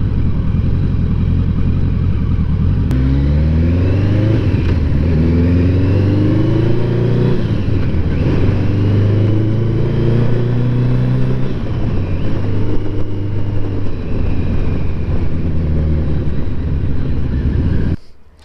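Motorcycle engine accelerating through the gears under rushing wind noise: the engine pitch climbs and drops at two or three gear changes, then holds steady at cruising speed. The sound cuts off suddenly near the end.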